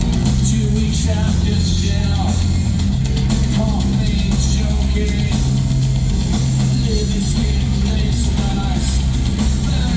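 Live industrial music played loud through a concert PA: a heavy, droning low synth-bass line and drums, with distorted vocals over it, recorded from the audience.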